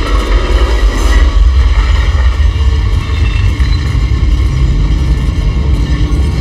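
Film sound effects of a UFO hovering over a house: a loud, deep rumble with many steady droning tones layered over it.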